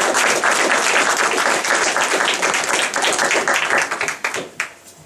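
Audience applauding after a reading, a dense patter of many hands clapping that dies away about four and a half seconds in.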